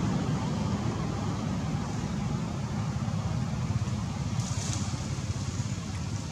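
Steady low outdoor rumble with no calls, and a brief higher hiss about four and a half seconds in.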